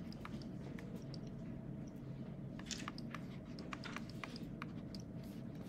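Faint, irregular clicks and taps of a stylus on a tablet screen as an equation is handwritten, over a steady low hum.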